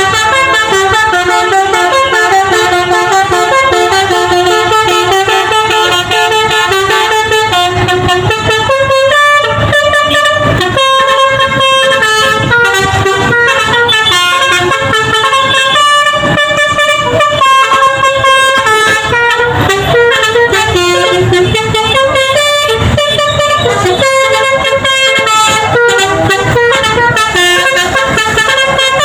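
Bus 'telolet' basuri horn, a multi-note air horn, playing a long melody of several tones at once that step quickly from note to note, loud throughout.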